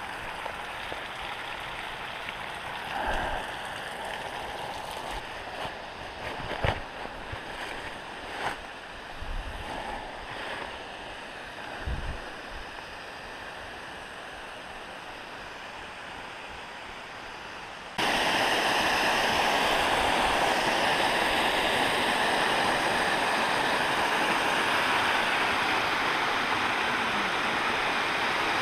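Rushing water of a small rocky creek running over stone ledges, starting abruptly and loudly about two-thirds of the way in and holding steady. Before it, a fainter water hiss with a few scattered knocks.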